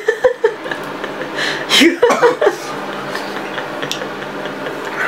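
Short breathy and voiced sounds from a man reacting to the heat of a bird's eye chili he is chewing, one near the start and a louder cluster about two seconds in, over a steady background hum.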